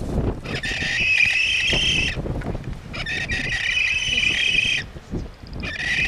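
Frigatebird calling at the nest: a high, rasping call held for about a second and a half, given three times with short gaps between.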